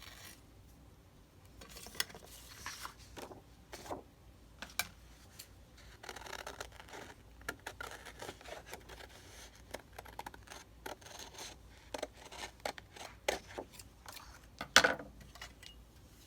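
Scissors snipping in irregular short cuts, with rustling and small clicks of craft materials being handled; a sharper knock near the end.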